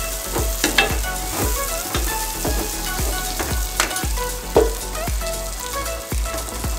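Sliced red onion and garlic sizzling in hot oil in a stainless pan, stirred with a spatula that scrapes and taps the pan now and then. Background music with a steady beat plays under it.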